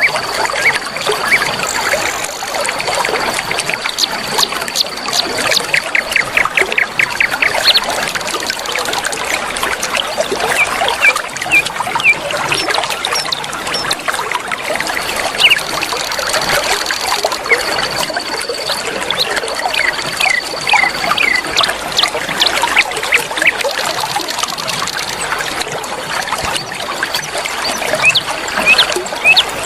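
River water flowing and trickling steadily, with many short bird chirps and quick trills scattered over it. A thin, high, steady tone comes and goes in the background.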